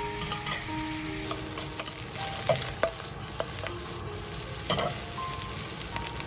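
Fried rice and vegetables being stir-fried in a hot oiled pan: a steady sizzle, with the spatula scraping through the rice and knocking against the pan a few times.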